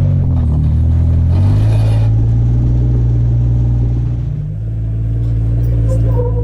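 Jeep Wrangler JK's 3.8-litre V6 engine running at low revs while crawling over trail obstacles. Its pitch shifts about one and a half seconds in, where there is a short hiss, and its level dips briefly a little after four seconds.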